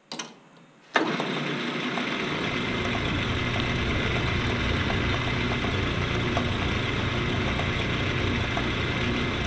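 A brief clatter, then a small metal lathe switched on about a second in and running steadily, spinning an aluminium workpiece in its chuck.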